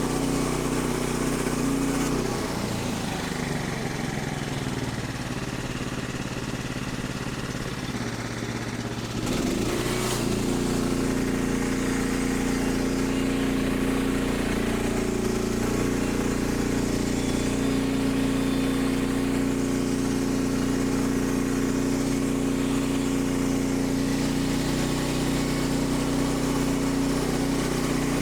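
Portable bandsaw sawmill's small gas engine running. About two seconds in it slows and drops in pitch, then about ten seconds in it speeds back up and runs steadily at a higher speed.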